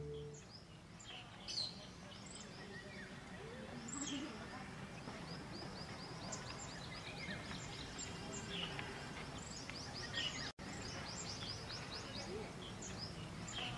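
Outdoor ambience of several birds chirping and trilling: quick runs of short, high, repeated notes over a faint steady background noise. The sound cuts out for an instant about ten and a half seconds in.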